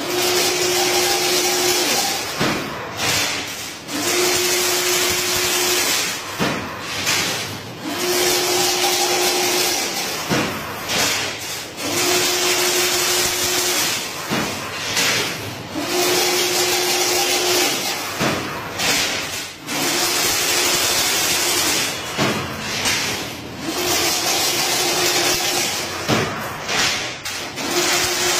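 Semi-automatic chain link fence machine running through its repeated weaving cycle: a steady hissing machine noise with a hum-like tone, held about a second and a half, that comes back roughly every four seconds, about seven times.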